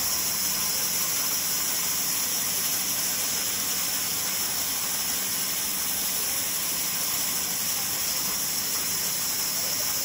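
Large vertical band saw running steadily, a continuous even hiss of the moving blade and its drive with no distinct strokes or changes.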